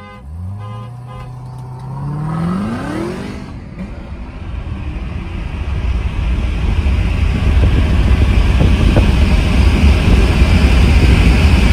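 Hard acceleration from a standing start heard from inside a Tesla Model 3 Performance. A car's pitched note holds briefly, then climbs steeply over the first three seconds and fades. After it, road and wind noise builds steadily louder as the car keeps accelerating.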